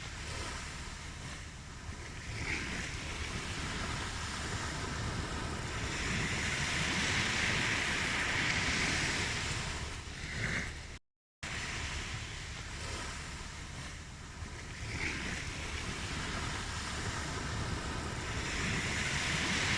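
Ocean waves washing onto a shore, the surf swelling and falling away in slow surges. The sound cuts out completely for a split second about halfway through, then the waves resume.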